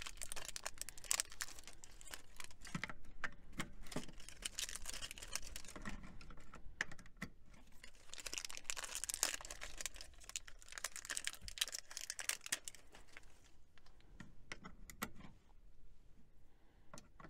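AA batteries being pushed one by one into a trail camera's battery compartment: a run of small irregular plastic and metal clicks and rattles, with bouts of rustling handling.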